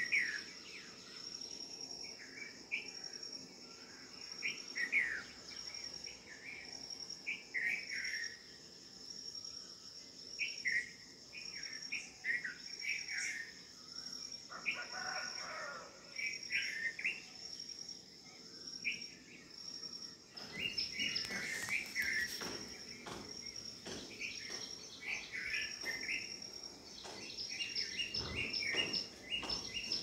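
A steady, high, pulsing cricket trill, with short falling bird chirps repeating every second or so over it. About two-thirds of the way through, a rougher noise with scattered clicks joins in.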